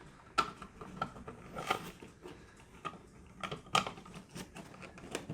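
Irregular clicks, knocks and scrapes of stiff electrical wires and a dimmer switch being pushed back into a wall box, with a few sharper clicks about half a second, a second and a half and nearly four seconds in.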